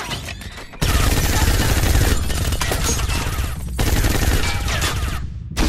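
Rapid automatic gunfire starting about a second in, a dense stream of shots with a brief break in the middle and another near the end.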